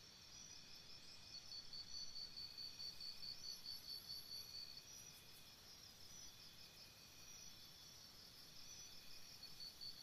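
Jungle insects chirping, faint: several rapidly pulsing trills overlap. A louder trill starts about a second in, stops about three seconds later, and comes back near the end.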